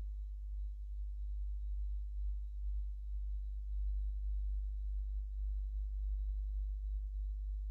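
A steady low hum with a faint, thin high tone above it, with no voice.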